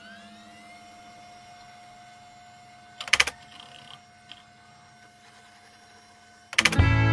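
Old desktop computer running after start-up: a steady electrical hum with a high held whine, and a loud burst of clicking about three seconds in, with a couple of fainter clicks after it. Loud guitar music cuts in near the end.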